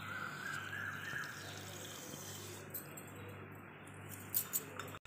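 Granulated sugar pouring into milk in a stainless steel bowl, a soft hiss for about the first second and a half, then faint background noise with a few small clicks near the end.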